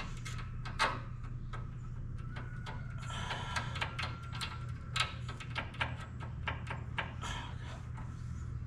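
Irregular light metallic clicks and taps of a wrench running a nut up a long thread on the cable fitting of a Wood-Mizer EG100 edger, over a steady low hum.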